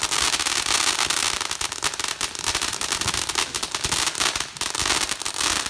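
Firework going off with a dense, rapid crackle of small pops over a steady hiss.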